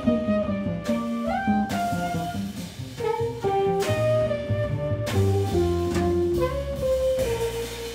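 Live jazz quartet: a saxophone plays a stepwise melody over double bass, electric guitar and drums, and settles on one long held note near the end.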